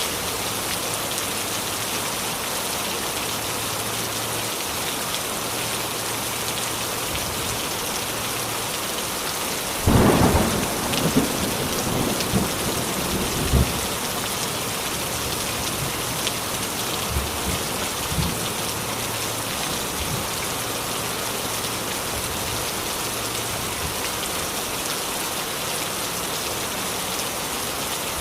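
Heavy rain falling steadily. About ten seconds in, a sudden clap of thunder cracks and rumbles on for about four seconds, with a few fainter rumbles after it.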